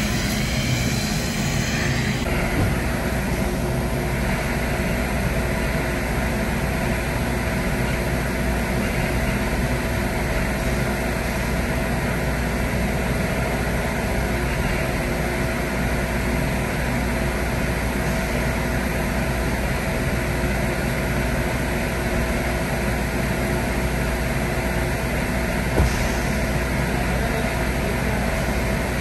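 Car wash blower machinery running: a steady, even drone with a constant hum, and one brief knock near the end.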